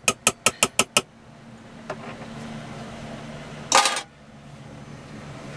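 Fork beating egg, water and powdered milk in an enamel mug: quick metal clinks, about six a second, for the first second. Then a low steady hum, and a short loud rattle near four seconds in.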